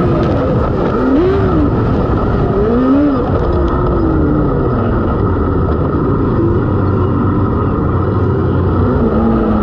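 Non-wing micro sprint car engine racing on a dirt track. Its pitch rises and falls several times as the throttle is lifted and reapplied through the turns, over a steady loud rumble.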